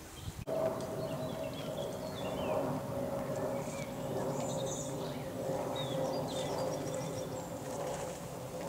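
Small songbirds singing in short high chirps over a steady drone that falls slightly in pitch; the sound cuts in abruptly about half a second in.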